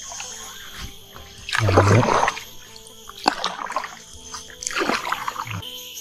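Water splashing in a swamp, the loudest splash about two seconds in and shorter ones later, over background music.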